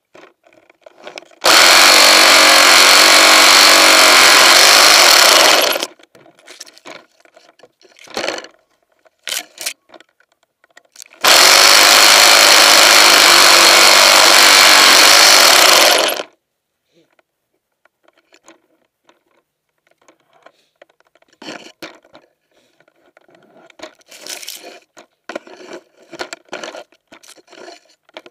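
Electric pole chainsaw running in two bursts of about four to five seconds each, cutting through tree branches, stopping dead between cuts. Quieter knocks and rustling of branches come between the bursts.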